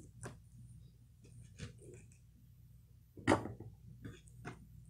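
Knife cutting through the crisp breaded crust of an air-fried chicken tender on a wooden cutting board: a few faint crunches and taps, with a louder tap about three seconds in.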